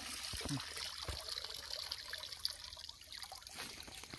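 Shallow water trickling steadily, with small light splashes.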